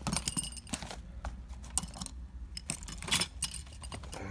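Small metal tools and parts clinking and tapping as they are handled, a scatter of sharp clicks with brief high ringing, busiest at the start and again about three seconds in.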